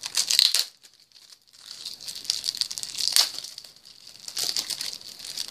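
A trading-card starter deck's wrapper being torn open and crumpled, crinkling in several bursts, with a short pause about a second in.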